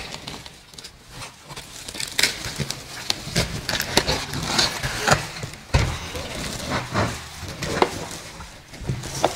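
Cardboard box and its packing being handled while 3D printer parts are lifted out: irregular knocks, scrapes and rustling.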